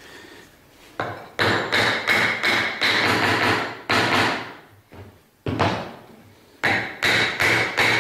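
A hammer driving a hardwood batten down onto the axle ends of a bicycle wheel through drilled holes: about a dozen sharp blows in quick runs with short pauses, each ringing briefly. The snug, forced fit is what the blows are for.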